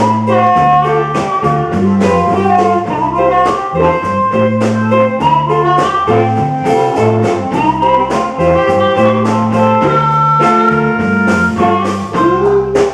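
Live band playing an instrumental blues-jazz passage during a sound check: amplified guitar lines over a moving bass line and a steady drum-kit beat.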